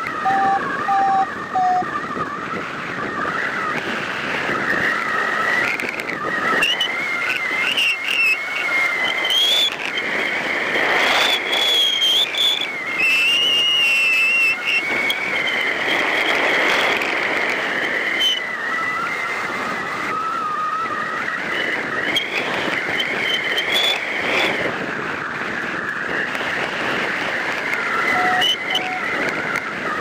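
Wind rushing over a camera on a hang glider in flight, with a wavering high whistle running through it. A short series of evenly spaced beeps sounds in the first two seconds and again near the end.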